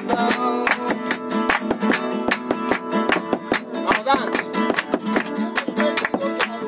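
Spanish acoustic guitar strummed in a quick flamenco rhythm, accompanied by sharp hand clapping (palmas) in time.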